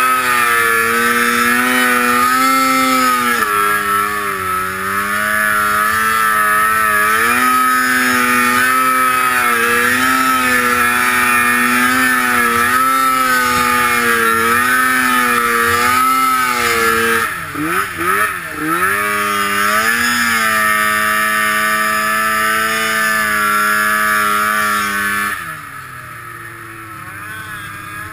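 Snowmobile engine running hard through deep powder, its pitch wavering with the throttle. A little past the middle it swings rapidly down and up for a couple of seconds, and near the end it drops abruptly to a low idle as the sled stops.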